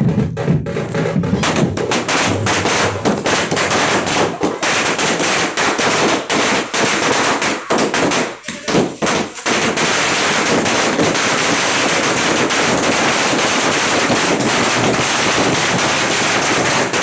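A string of about a thousand small firecrackers (a 1000-wala ladi) going off in a rapid chain of cracks. The bangs come unevenly for the first several seconds. After a short lull about halfway through, they merge into a dense, unbroken rattle that runs almost to the end.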